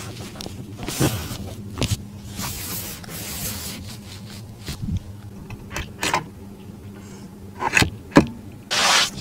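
A hand rubbing and pressing car-seat leather upholstery, making several short rubbing swishes, the loudest near the end, with a few sharp clicks shortly before it.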